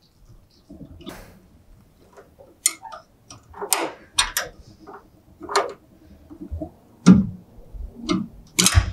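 Irregular clicks and scrapes of a bent metal pick working against a plastic fuel-cap tether clip on a fuel filler door, prying at the clip's locking prongs to release it.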